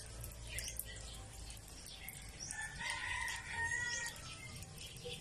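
A rooster crowing once, one drawn-out call of about a second and a half near the middle. Small birds chirp repeatedly throughout, in short high notes.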